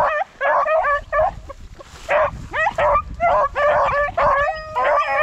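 A pack of rabbit-hunting dogs giving tongue: many short, overlapping yelping cries on the rabbit's trail, with a brief lull just past a second in.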